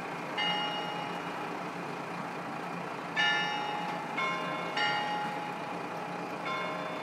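KiHa 54 diesel railcar's engine idling steadily while the train stands at a station. Over it, clear bell-like chimes ring out five times at irregular intervals, each struck tone dying away slowly.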